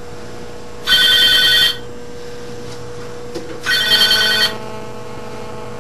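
Telephone ringing: two trilling rings, each under a second, about three seconds apart.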